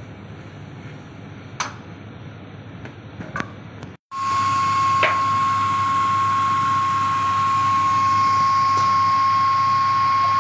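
A few light knocks and clicks over a low background, then, after a short break, a machine running with a loud, steady high whine over a low hum.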